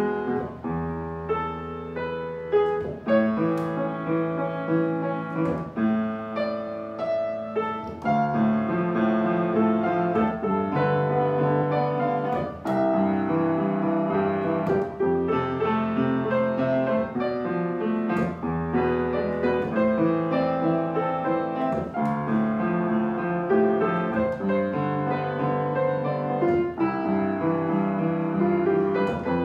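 Upright piano played solo: a melody over held chords and bass notes, with new notes struck every fraction of a second.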